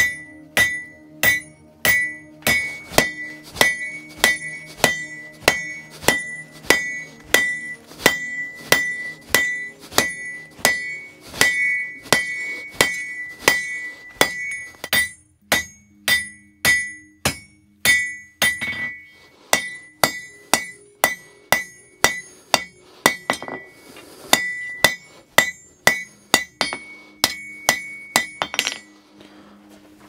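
Blacksmith's 2 kg hammer striking a hot square iron bar on an anvil, a steady run of blows about one and a half a second, each leaving a high ring; the bar is being flattened and drawn out into a rectangular strip. The blows pause briefly a few times after the middle and stop a second or so before the end.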